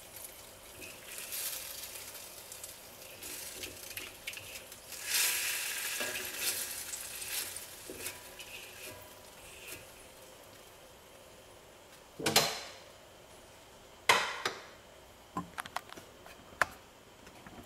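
Stir-fried pork and cabbage being stirred and scraped around a hot cast iron wok with a light sizzle, the heat just turned off. This is followed by a few sharp metal knocks and clinks of utensils and cookware, the loudest about twelve and fourteen seconds in.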